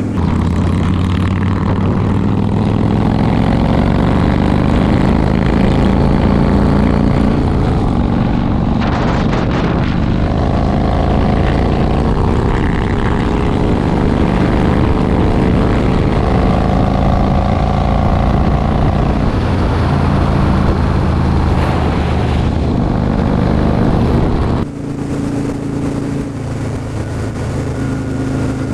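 Yamaha cruiser motorcycle's V-twin engine running under way, its pitch climbing slowly as the bike accelerates, more than once. Near the end the sound drops suddenly to a quieter, steadier engine note.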